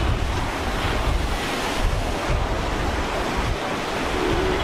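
Heavy ocean surf breaking and washing over rocks, a steady rushing roar with a pulsing low rumble, with wind buffeting the microphone.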